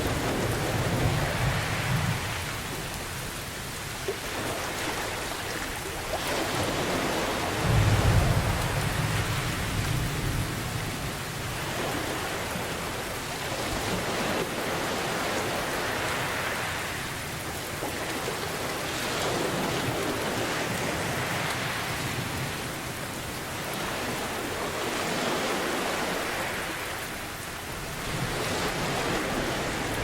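Steady heavy rain with low rolling thunder rumbles at the start, again about eight seconds in, and near the end. Under it, ocean surf swells and fades every few seconds.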